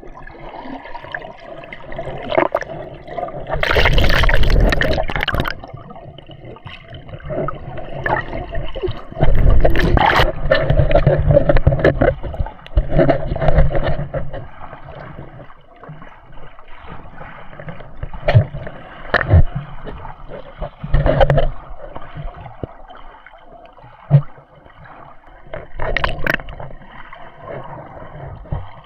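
Muffled water gurgling and sloshing around a camera at or under the surface, in irregular loud surges.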